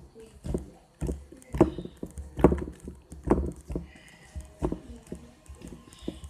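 Sticky homemade clay slime being pressed and kneaded by hand, a series of squishing slaps about once a second.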